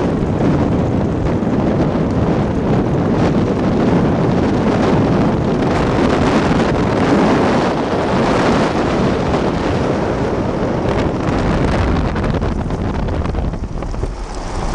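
Loud, steady wind noise buffeting the microphone over the rumble of a moving vehicle, easing briefly near the end.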